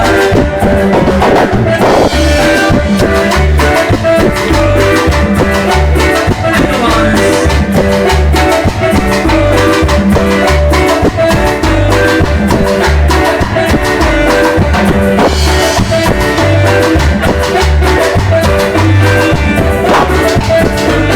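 Latin dance music in a salsa style, played on electronic keyboards over a pulsing bass line and a steady drum beat.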